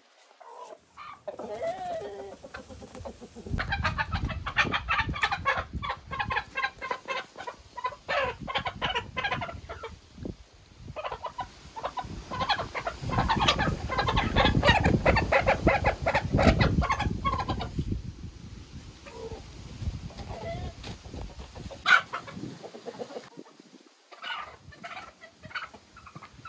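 Chickens clucking and squawking in two long, loud stretches of rapid calls, with quieter clucking between and after them. A single sharp click comes late on.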